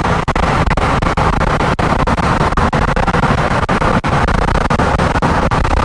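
Loud, steady rushing road and wind noise from a vehicle travelling at highway speed, broken by frequent brief crackles and dropouts.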